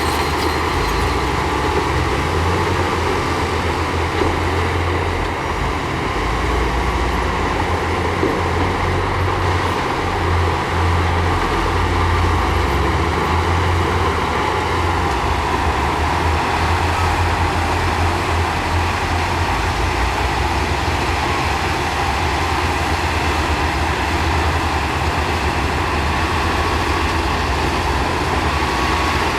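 Heavy diesel construction machinery, a bulldozer and dump trucks, running steadily.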